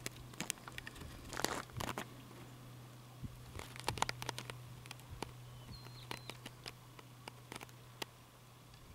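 Handling noise from a camcorder being panned and zoomed: scattered light clicks and rustles, thickest about a second and a half and four seconds in, over a steady low hum. A brief high whistle sounds about six seconds in.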